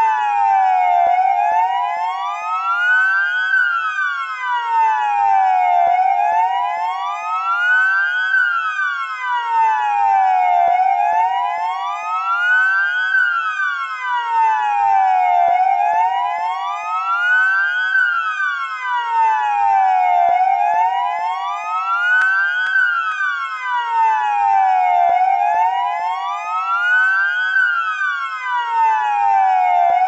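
Armas electronic emergency-vehicle siren sounding a slow wail, its pitch rising and falling steadily about every five seconds.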